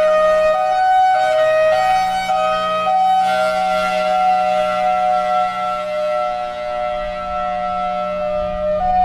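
Federal Signal Thunderbolt 1003 outdoor warning siren sounding its uneven 'drunk' hi-lo signal. Two tones alternate about every half second. About three seconds in, both tones sound together for several seconds, and the alternation resumes near the end. A steady low hum runs underneath.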